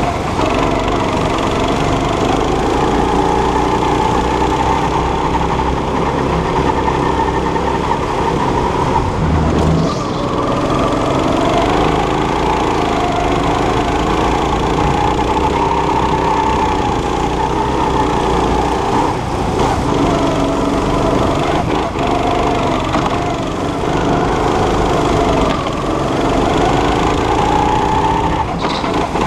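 Go-kart's small single-cylinder petrol engine running hard, its pitch repeatedly climbing as it revs out and dropping back as the throttle eases, over a steady low rumble.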